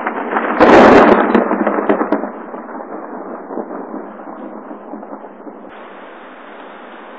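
A close thunderclap: a sudden loud crack about half a second in that rumbles away over the next second or two. After it comes a steady hiss of hail falling.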